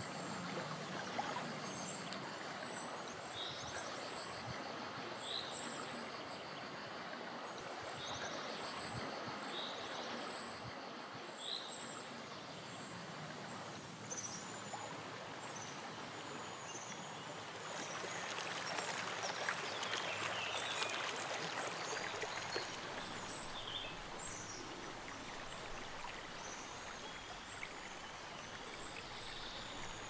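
Rushing water of river rapids, a steady broad rush that grows louder for a few seconds past the midpoint. A bird calls repeatedly, a short note about once a second in the first third, with higher chirps scattered throughout.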